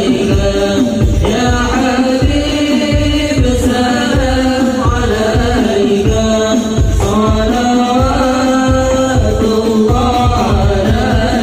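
Men singing an Arabic devotional song (sholawat) in unison through a loudspeaker, over a steady beat of hadroh frame drums.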